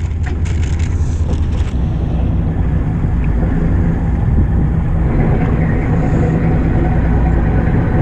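Fishing boat's engine running with a steady low rumble. A plastic bag crinkles in the first second or two.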